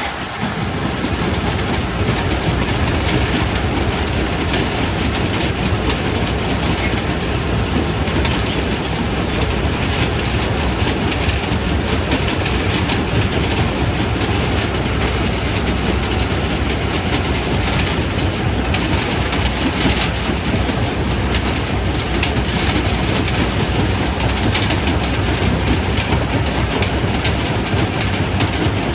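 Primary rock crusher at a quarry running and breaking stone: a continuous loud rumble thick with clattering and knocking of rock.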